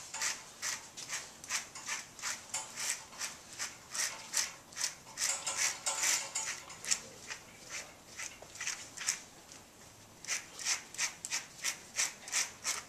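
Grooming brush being drawn repeatedly through a dog's long coat, working cleaning powder in and pulling out knots and tangles: a steady run of short scratchy strokes, about two a second, that pauses for a couple of seconds past the middle and picks up again near the end.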